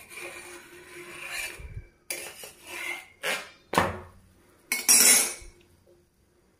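Cooking pan and metal utensils: a soft hiss, then a handful of short clinks and scrapes of metal against the pan, the last one the loudest.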